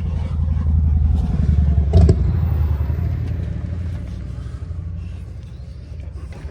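Car engine running with a low, steady rumble, and a single sharp knock about two seconds in.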